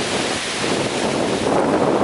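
Strong wind with heavy rain lashing small trees: a dense, loud rush of noise that swells and eases a little.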